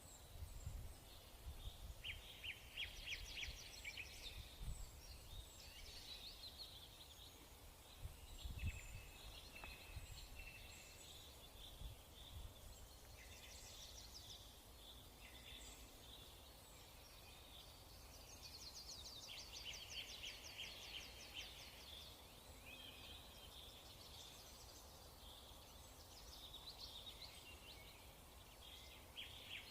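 Faint birdsong: short chirps and fast trilling phrases repeating over several seconds, with a few dull low thuds, the loudest about nine seconds in.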